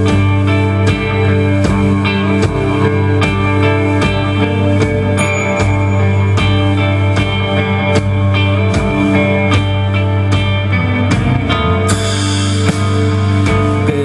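Live rock band playing an instrumental passage: electric guitars, keyboard and drum kit over a steady beat. The sound turns brighter near the end.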